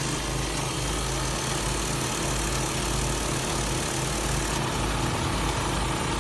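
Small gas engine of an airless line-striping machine running steadily, with an even hiss over it.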